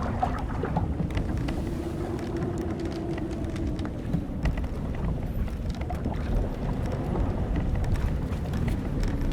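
An old wooden sailing ship creaking: a long drawn-out creak that starts about one and a half seconds in and fades out around four seconds, with a few small clicks, over a steady low rush of wind and sea.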